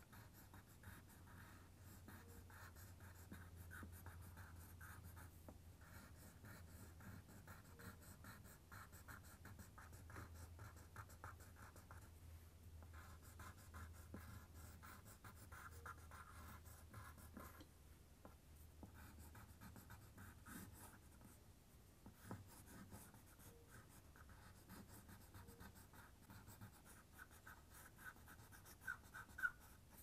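Faint pencil scratching on paper in quick, short strokes, sketching fine lines, with brief pauses between runs of strokes and one sharper tick near the end.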